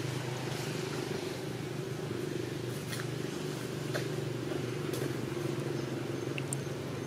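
A steady low mechanical hum, like a running engine, over a haze of background noise, with a few faint sharp clicks about three, four and five seconds in.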